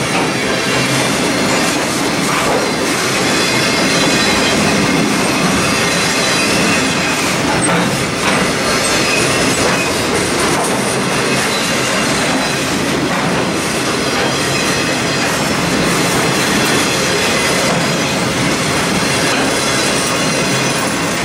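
Freight cars of a circus train rolling past at close range: a steady rumble and clatter of steel wheels on the rails.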